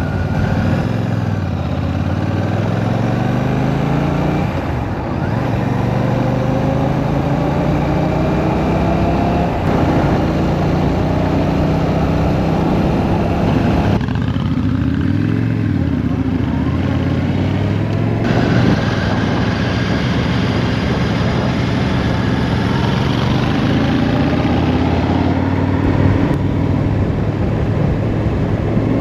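Royal Enfield Shotgun 650's parallel-twin engine under way, its pitch climbing as it accelerates and falling back at each gear change, several times over, with a steady rush of wind noise.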